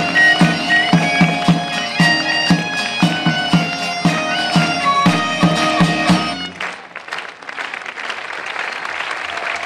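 Bagpipe playing a melody over a steady drone, with a drum beating about three times a second. The tune ends about six and a half seconds in and audience applause follows.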